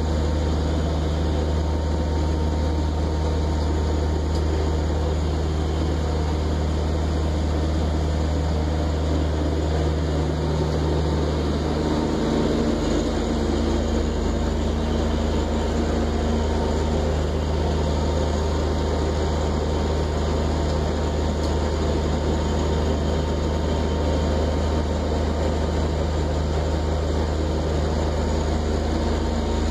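Steady engine drone of a 1959 26-foot steel trawler underway, heard from inside the wheelhouse: a deep, even hum that holds constant throughout.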